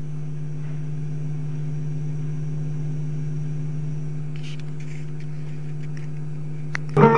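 A steady low hum with even overtones and a few faint clicks. Plucked-string music with percussion starts abruptly near the end.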